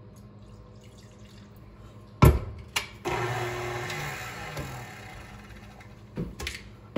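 A loud clunk about two seconds in, then a KitchenAid Classic Plus tilt-head stand mixer runs for a few seconds, whirring and sloshing through a thin batter of milk, eggs and flour. It fades out near the end, followed by a couple of light knocks.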